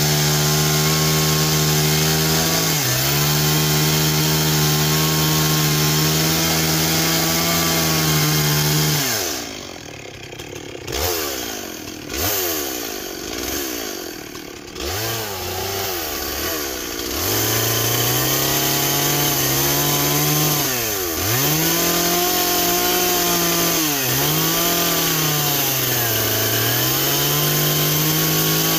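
Gas chainsaw at full throttle cutting into a large wooden log, the engine note dipping briefly now and then under load. About nine seconds in it drops back toward idle with a few rising and falling revs, then runs up to full throttle and cuts again.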